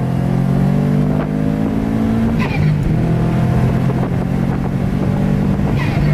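Turbocharged Subaru flat-four heard from inside the cabin pulling hard under acceleration. The engine note climbs for about two seconds, breaks briefly for a gear change with a short chirp, then carries on steadily.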